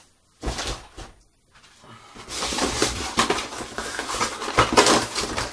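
Hands handling and rustling packaging while unpacking a parcel: a short thump about half a second in, then continuous rustling with small clicks from about two seconds on.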